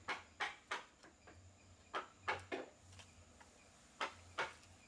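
Mallet striking a wood-carving chisel as it cuts into solid wood: about seven sharp knocks in irregular groups of two or three.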